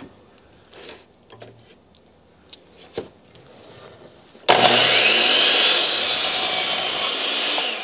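A few light clicks as the miter table is set, then about four and a half seconds in an electric compound miter saw starts and its blade cuts through a 2x rafter board at a 10-degree angle. After about two and a half seconds the sound drops and the blade winds down.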